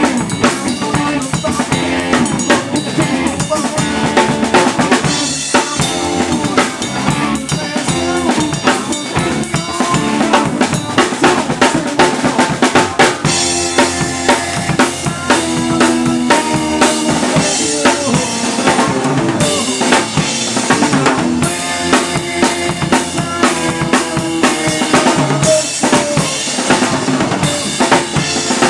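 Live rock band playing, heard from right beside the drum kit: the drums and cymbals are loudest, with kick, snare and crashes hitting hard, and electric guitar and bass underneath.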